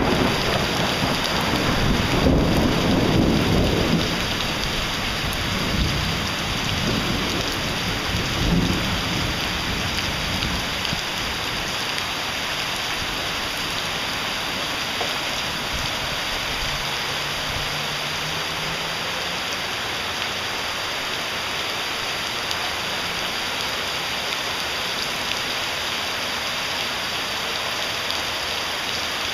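Heavy downpour: rain pouring steadily onto pavement and foliage as an even hiss. A low rumble over roughly the first ten seconds dies away, leaving the rain alone.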